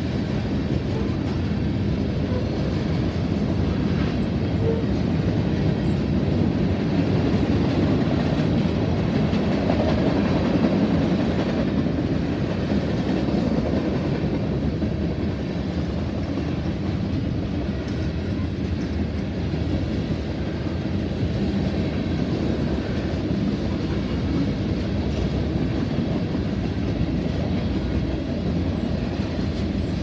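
Freight train cars (tank cars and covered hoppers) rolling past, a steady low rumble of steel wheels on rail with some clickety-clack, a little louder around ten seconds in.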